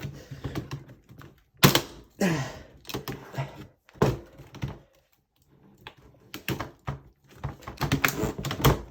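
Hard plastic laptop casing being pried and handled: a run of sharp clicks and knocks, with a pause midway and a quicker cluster of clicks near the end.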